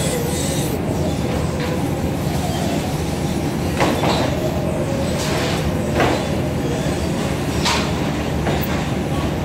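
Airport baggage conveyor belt running with a steady mechanical rumble, broken by three sharp knocks of bags being handled, about four, six and eight seconds in.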